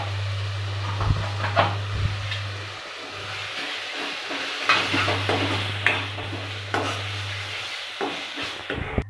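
Steel spatula stirring spice powders and masala paste in hot oil in a kadhai: steady sizzling with frequent clicks and scrapes of the spatula against the pan.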